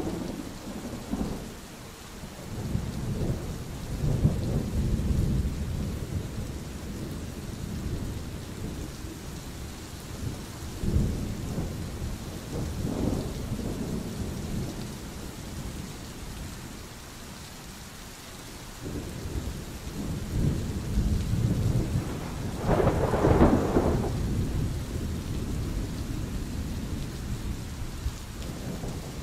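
Thunderstorm: steady rain hissing under repeated rolls of low thunder that swell and fade, easing off for a few seconds in the middle. One louder, sharper thunderclap comes near the end.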